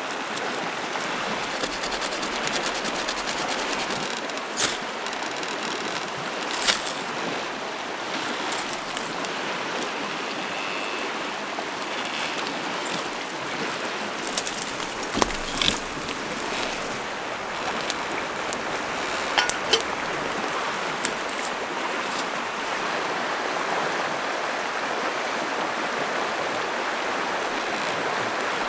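River rapids rushing steadily, with a few short sharp clicks and snaps over the top.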